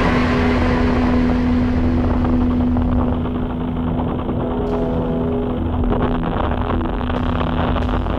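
50cc petrol engine of an RC tow plane running steadily on the ground close by, a low hum with a steady drone; it gets a little quieter and loses some hiss about three seconds in.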